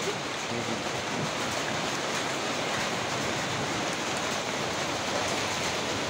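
Rain falling steadily on wet asphalt pavement, an even hiss of rain.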